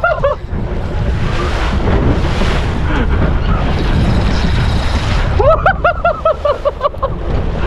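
Wind buffeting the microphone over the hum of water and hull on a boat moving across open sea. A quick run of short, high-pitched chirps, about five a second, sounds briefly near the start and again for over a second near the end.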